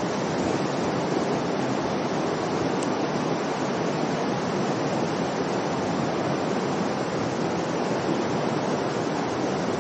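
Steady rush of flowing water in a rocky mountain river, the upper east branch of the Ōi River.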